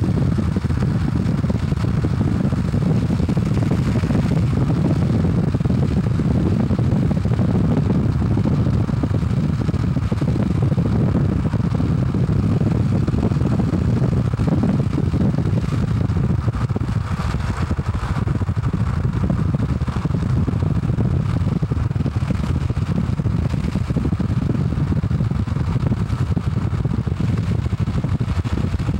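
Steady low rumble of a car driving along a road, road and wind noise heard from inside the car.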